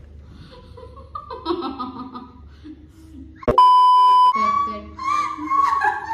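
Young women laughing and giggling, cut about three and a half seconds in by a loud, steady, high beep lasting under a second: the TV test tone that goes with colour bars. Laughter and chatter start again right after it.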